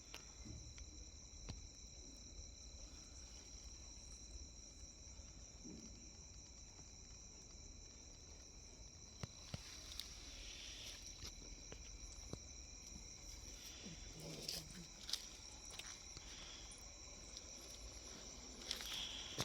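Insects chirring steadily in two high-pitched tones, the lower one stopping about halfway, with a few faint clicks and knocks in the second half.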